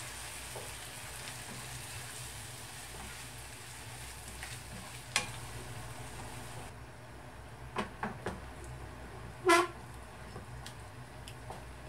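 Chopped tomatoes and fried onions sizzling in a non-stick frying pan while a wooden spatula stirs and scrapes through them. A few short knocks of the spatula against the pan, the loudest about nine and a half seconds in.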